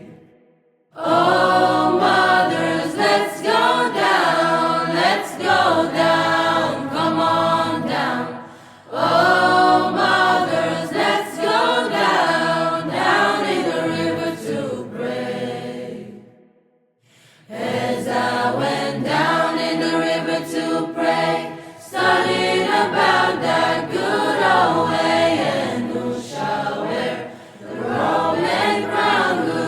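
Several voices singing together in harmony as music, in long sung phrases broken by brief pauses about a second in, around nine seconds in and around seventeen seconds in.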